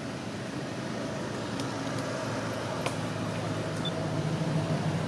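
Low steady hum of a motor vehicle engine, growing louder in the second half, with a couple of faint clicks.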